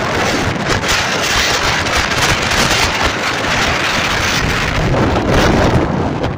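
Strong gusty wind buffeting the microphone, over a steady rushing hiss of rough surf breaking on the shore; the low buffeting gets heavier near the end.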